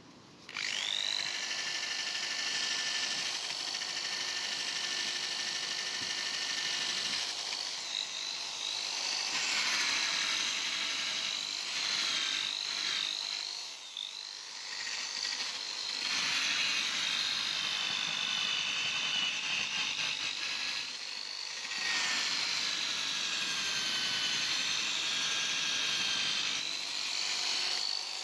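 Power-driven wire cup brush scrubbing rust off an old adjustable wrench. The motor starts about half a second in, then whines steadily over a scratchy hiss, its pitch wavering as the brush is pressed in, with short let-ups about 14 and 21 seconds in.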